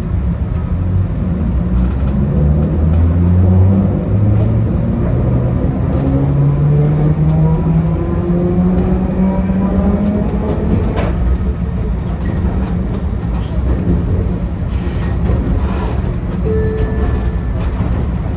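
Enoden electric train pulling away: the traction motors whine in a rising pitch as it picks up speed over the first ten seconds or so, under a steady rumble of the running gear. In the second half the wheels give a few sharp clacks over the track.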